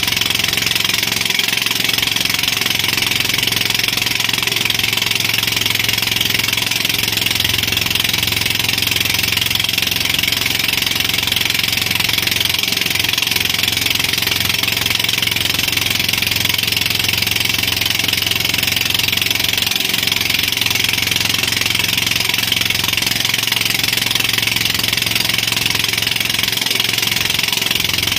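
Towing motorboat's engine running steadily at speed, mixed with the rush of wind and water.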